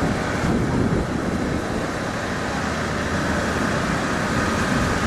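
Steady outdoor city background noise, mostly distant road traffic, with no distinct events.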